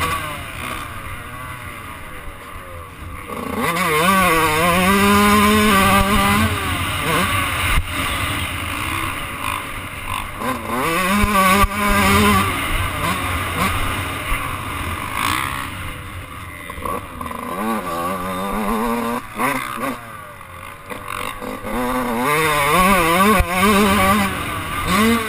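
Dirt bike engine heard from on board while riding a motocross track, revving up and dropping back again and again as the rider works the throttle and gears. The engine eases off briefly a few seconds in and again near the end.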